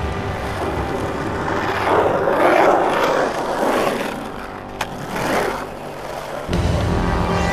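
Skateboard wheels rolling on concrete, swelling louder for a couple of seconds in the middle, with a sharp click a little before five seconds in.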